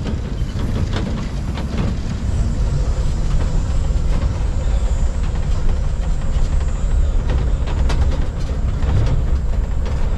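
Pickup truck with passengers in its covered back, driving down a steep, rough dirt road: a steady low rumble with scattered knocks and rattles as it jolts over the bumps.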